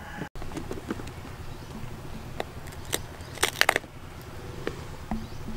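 Cooked king crab shell cracking as a leg is broken off by hand: scattered cracks, with a loud cluster of snaps about three and a half seconds in.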